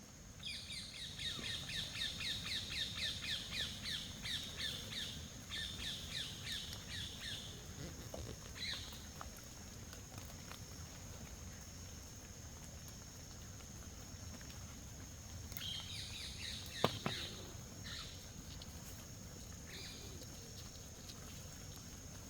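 Wild birds calling in forest: a fast run of repeated chirping notes, about four a second, for the first seven seconds or so, then scattered single calls. A steady high-pitched drone runs underneath, and a single sharp click comes about seventeen seconds in.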